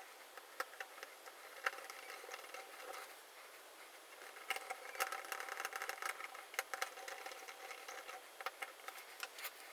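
Faint, scattered clicks and light rattling of small parts being handled, as the LCD's wire connectors are plugged back onto the circuit board.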